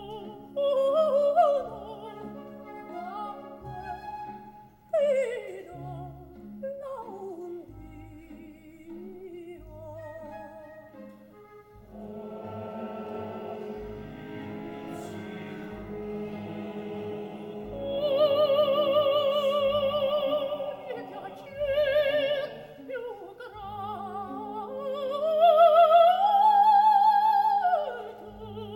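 Operatic soprano singing with wide vibrato over an opera orchestra, holding long high notes in the second half and climbing to a loud sustained high note near the end. A chorus of voices joins in around the middle.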